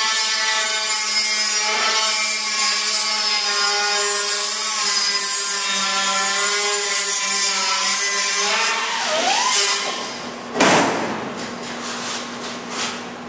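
Handheld grinder running against sheet steel, grinding back the edge of a car body panel's lip so the panel will sit down in place. A steady whine with a harsh grinding hiss. About nine seconds in it winds down, then comes a sharp knock and a few light clicks.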